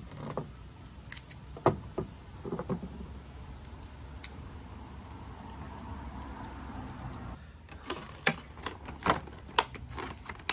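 Metal keys and a small steel hitch pin lock clicking and clinking as a key is tried in the lock and the pin is handled. In the last few seconds come a quicker run of sharper clicks and plastic rattles as a blister-packed coupler lock is picked up.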